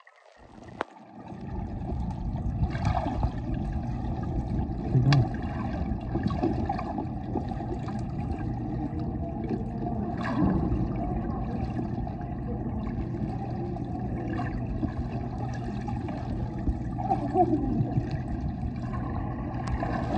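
Pool water churning and sloshing as a steady, dense rush with a constant low hum beneath and a few sharp knocks, rising in over the first second or two.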